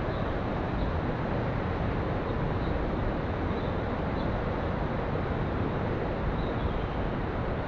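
Steady rush of river water running through a rocky gorge, with a few faint, brief high chirps on top.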